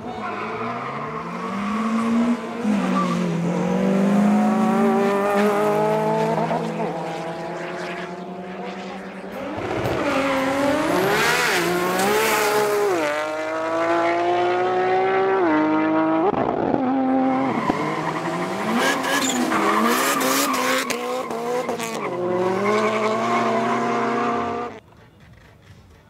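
Drag-racing cars accelerating hard at full throttle, the engine pitch climbing through each gear and dropping back at each upshift, several times over. The sound cuts off abruptly near the end.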